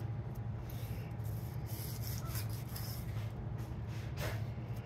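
Fillet knife cutting and scraping through a king salmon in short, uneven strokes, over a steady low hum.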